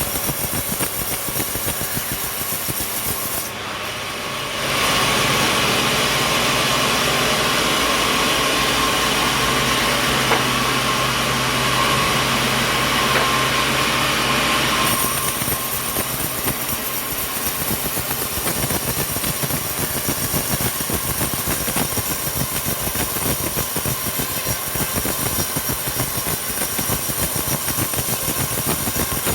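Sawmill saw cutting through coconut wood: a louder, steady cut starts about five seconds in and lasts about ten seconds, then the mill machinery runs on more quietly.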